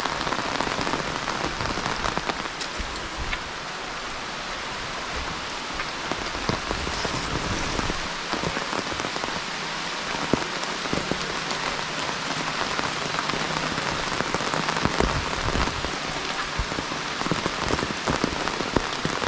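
Steady rainfall, with a dense patter of individual drops striking close by.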